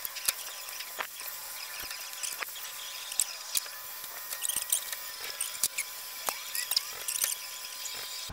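Scattered light clicks and taps of hand tools and plastic bumper parts as the fog light assemblies are worked loose from a pickup's front bumper, over a steady high hiss.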